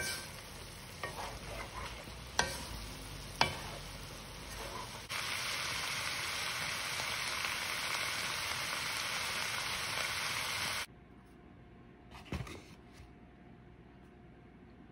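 Minced beef and peas sizzling in a non-stick pan while being stirred, with a few sharp clicks of the utensil against the pan in the first few seconds. The sizzle gets louder about five seconds in and cuts off suddenly near eleven seconds, leaving faint room sound with one soft knock.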